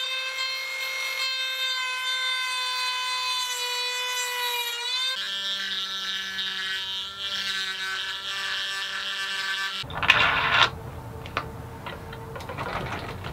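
Corded rotary tool whining at high speed as it notches the end of the aluminium T-track; its pitch dips briefly about five seconds in, then it runs at a lower pitch until it stops about ten seconds in. A few sharp clicks follow as a T-bolt with its hold-down is fitted into the track.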